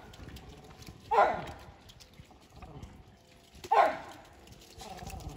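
Sheep (ewes) bleating in a crowded pen: a loud bleat about a second in, another nearly four seconds in, and a fainter one near the end.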